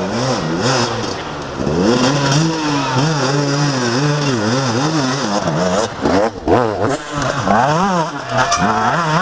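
Enduro motorcycle engine revving hard, its pitch rising and falling about twice a second as the rider works the throttle through mud, with a few sharp revs near the end.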